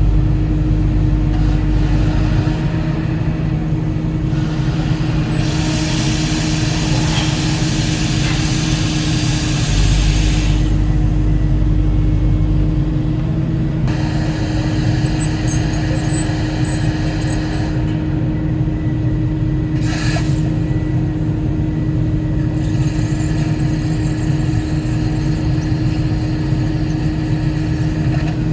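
Volvo 140E excavator's diesel engine running steadily while working, with the low drone swelling twice as the load changes. From about five to ten seconds in there is a stretch of hiss.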